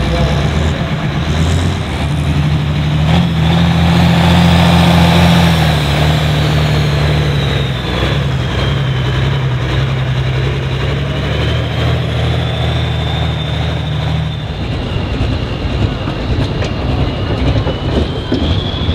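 Super Farm pulling tractor's diesel engine running hard, a deep steady drone with a thin high whine that slowly dips and rises again. The engine note drops and changes about three-quarters of the way through.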